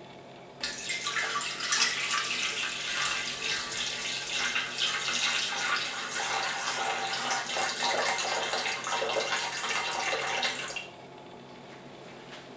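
Water poured in a steady stream into a bread maker's non-stick metal baking pan, starting about half a second in and cutting off sharply about two seconds before the end.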